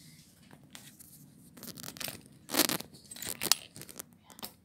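Handling noise as a phone camera is picked up and set back down: a string of rubs, knocks and sharp clicks, the loudest a brief rustle about two and a half seconds in and a sharp click about a second after it.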